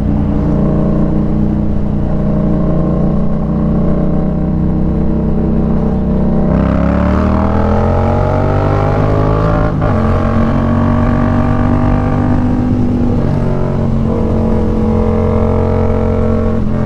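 Yamaha MT-07's parallel-twin engine under way, running steadily at first, then accelerating with a rising pitch from about six and a half seconds in. There is a brief drop in revs near ten seconds, then it holds a steady higher note.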